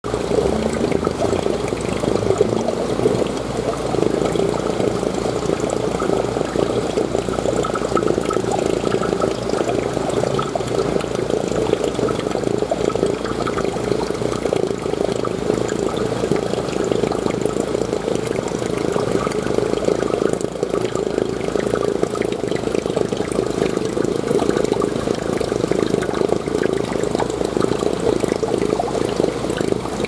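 Steady splashing and gurgling of water running into and circulating in a seawater holding tank.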